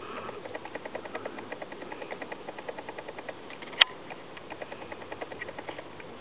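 Bernese Mountain Dog sniffing rapidly, quick short sniffs several a second in two runs, with one sharp click about halfway through.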